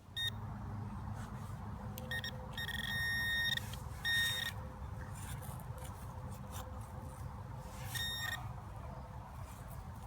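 Garrett metal detector sounding target tones: several short beeps and one long tone of about a second and a half, all at the same high pitch, over a steady low background noise.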